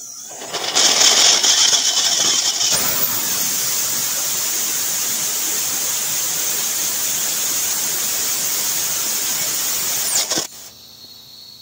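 Homemade liquid-fuelled rocket engine with a convergent-divergent nozzle firing at full power: a loud, steady jet hiss that starts just after the opening, is harsher and higher for the first couple of seconds, and cuts off abruptly about ten seconds in as the engine is shut down.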